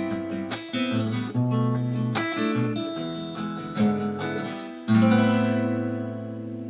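Acoustic guitar playing the closing chords of a song, with no voice; a final strummed chord about five seconds in rings and slowly fades.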